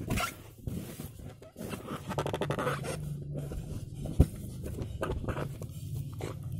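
A dog nosing and mouthing a rubber balloon on a bed: irregular rubbing, scraping and squeaking of the balloon and bedding, with one sharp tap a little past the middle.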